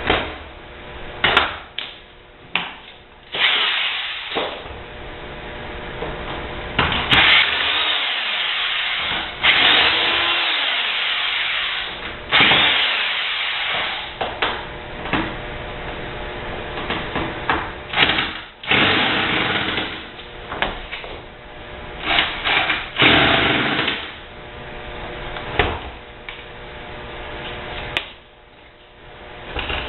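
Power drill running in irregular bursts of a second or two, with sharp knocks and clatter in between, as parts of a dishwasher are worked loose.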